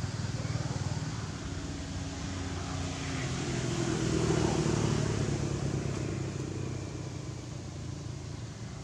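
A motor vehicle's engine running steadily, swelling to its loudest about halfway through and then fading as it passes by.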